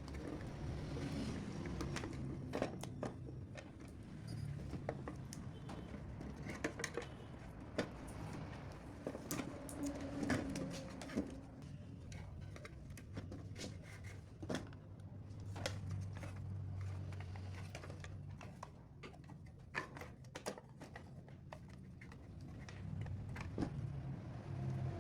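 Scattered light clicks and knocks, irregularly spaced, over a low steady hum.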